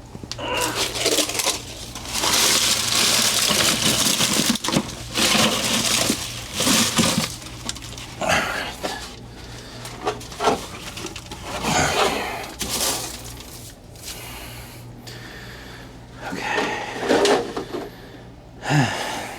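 Irregular rustling, scraping and light clattering as garden soil, plant debris and containers are handled by hand, with scattered sharp knocks.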